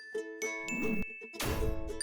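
Railroad crossing bell ringing its repeating 'kan-kan', mixed with bright cartoon dings and chimes. A short noisy burst comes about one and a half seconds in.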